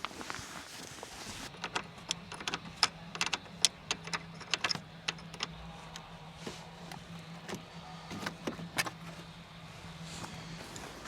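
Rapid sharp clicks and snaps of plastic interior trim being pried and worked loose inside a car, over a steady low hum that stops shortly before the end.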